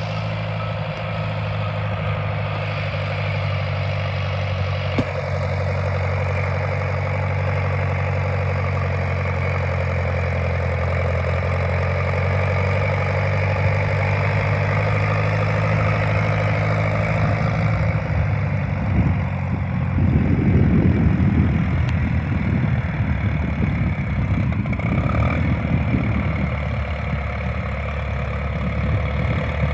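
A 1956 Case VAC tractor's four-cylinder engine running steadily at low speed as the tractor is driven across grass. About two-thirds of the way in, the sound grows louder and rougher.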